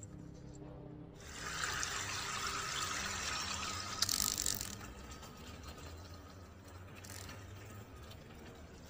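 Water gushing and splashing through a sluice gate in a bamboo wall as the tide flows into a fish pond. It is loudest for the first few seconds, then settles to a lower, steady rush after about five seconds.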